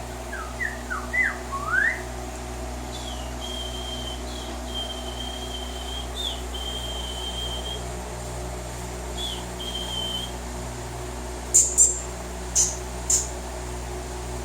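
Whistled notes: a few quick rising whistles, then several long, steady, high whistles, and near the end four loud, sharp, very high chirps.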